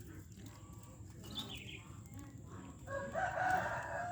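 A rooster crowing: one long call that starts about three seconds in and is still going at the end, over a low background rumble.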